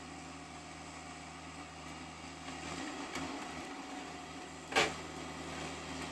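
Bobcat 5-ton excavator working as a timber harvester: its engine runs steadily, with one sharp crack about five seconds in, the loudest sound.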